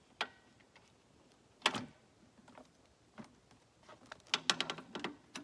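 Clicks and clunks of the DR trimmer mower's handle arms being raised and set into place: a sharp click, a louder knock with a short ring, then a quick run of rattling clicks near the end.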